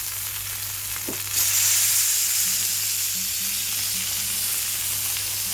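Tomahawk ribeye steak searing on a hot oiled griddle pan, sizzling steadily; the sizzle gets suddenly louder about a second in. A steady low hum sits underneath.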